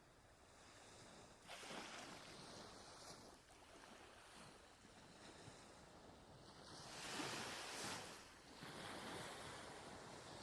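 Quiet sea waves washing in and out, with a swell about a second and a half in and the largest wave breaking about seven seconds in.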